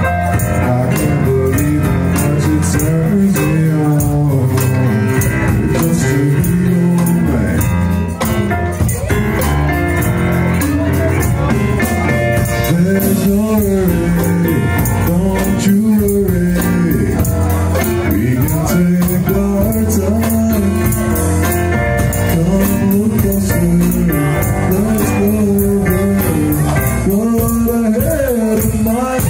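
Live band playing a song, with a male singer's voice over a drum kit and cymbals keeping a steady beat.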